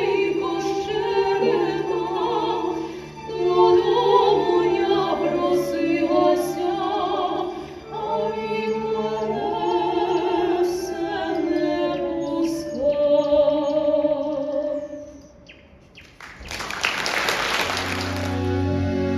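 Operatic stage singing with vibrato, voices over music, for about fifteen seconds. After a short dip, a brief loud burst of noise, then sustained instrumental music comes in near the end.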